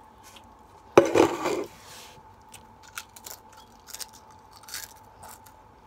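A bite into a Pringles Scorchin' BBQ potato crisp: one sharp crunch about a second in, followed by quieter chewing with scattered small crackles.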